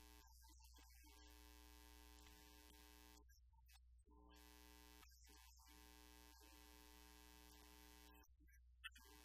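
A man's voice chanting a Buddhist sutra faintly in a low monotone, long held syllables on one pitch broken by short pauses for breath every few seconds.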